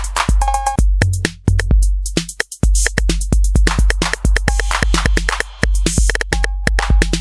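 Roland TR-8S drum machine playing a programmed electronic beat from its factory presets: a deep kick drum, fast crisp hi-hat and percussion hits, and short pitched blips. The kick drops out briefly about two seconds in, then the groove picks up again.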